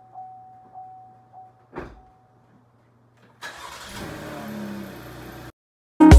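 A car's warning chime pings steadily about every half second under a faint hum, and a single thump comes about two seconds in. About three and a half seconds in, a car engine starts and runs, then cuts off suddenly.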